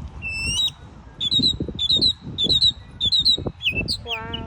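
A songbird singing a rapid run of short, high chirps, several a second, each hooking upward in pitch. Near the end a lower-pitched call sounds, and a low uneven rumble runs underneath.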